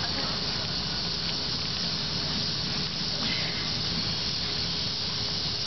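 Steady hiss with a faint low rumble from a SEPTA Silverliner III electric train pulling away into the distance.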